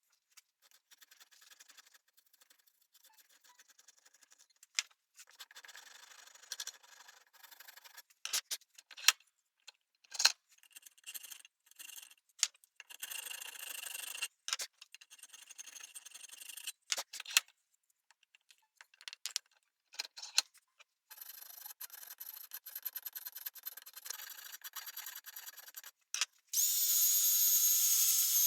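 Intermittent scraping and rubbing of hand work on a reclaimed maple saw handle, with scattered sharp clicks and knocks. Near the end a small power tool starts and runs with a steady high whine.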